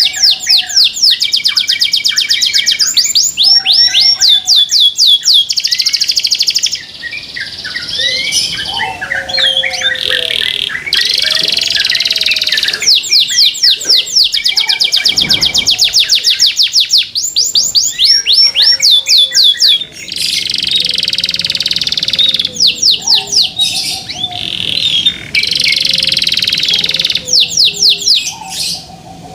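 Domestic canary singing loud, fast rolling trills of rapidly repeated high notes in long phrases, broken by short pauses and quicker twittering passages.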